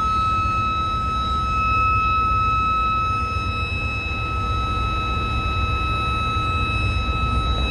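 A switchboard alarm buzzer sounds a steady, continuous high tone, signalling the reverse power trip on one of the ship's auxiliary diesel generators. Under it is the constant low running of the auxiliary generator engines.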